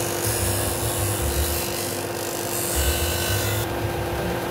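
Ryobi 370 W belt and disc sander running with a steady hum while a small wooden hinge strip is pressed against its spinning sanding disc to round the corners: a rasping hiss for about three and a half seconds that stops near the end as the piece is lifted off.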